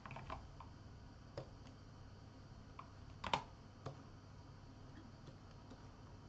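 A few scattered clicks of a computer keyboard and mouse during digital painting work, the loudest a little past halfway, over a faint steady low hum.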